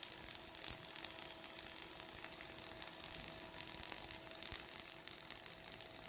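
Flux-cored arc welding on carbon steel: a steady hissing crackle from the arc, with a faint steady hum beneath and a couple of sharp clicks.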